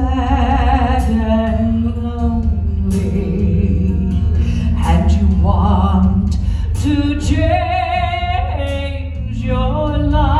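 Male and female voices singing a song with heavy vibrato over an instrumental accompaniment with a steady bass.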